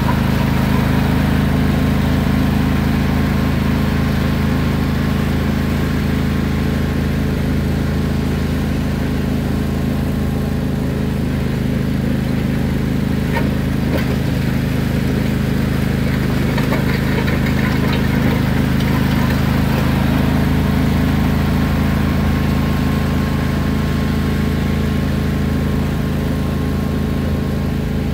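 Riding lawn mower engine running steadily while the mower is driven.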